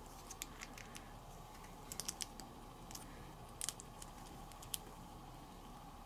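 Small plastic building-block pieces clicking and tapping as they are handled and pressed together: scattered faint clicks, with a few in quick succession about two seconds in.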